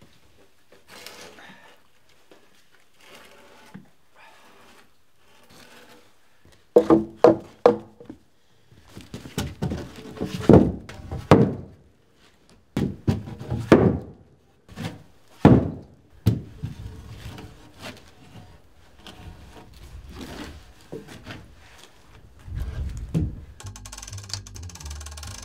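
Heavy wooden beams knocking and thudding as they are handled and set down on one another: a quick run of sharp knocks about seven seconds in, then several louder thuds through the middle and one more near the end.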